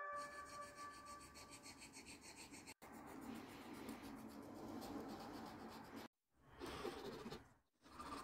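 Needle file rasping faintly over a white cedar carving in quick short strokes, broken twice by brief silent cuts in the second half.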